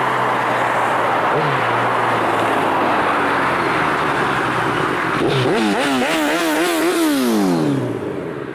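Kawasaki Z1000 inline-four motorcycle with an Arrow Race-Tech full exhaust system riding past. A steady rush of road noise gives way, about five seconds in, to a wavering, rising engine note, which then falls steadily in pitch as the bike passes and pulls away.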